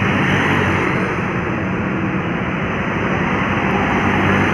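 Bus diesel engine running close by in road traffic: a steady low engine drone under a continuous rush of traffic noise.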